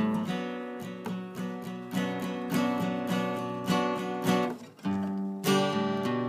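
Background music played on acoustic guitar, plucked notes, with a brief pause about three-quarters of the way through.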